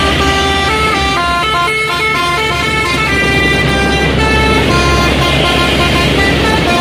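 A melody of held, horn-like tones stepping from note to note, over a steady low rumble.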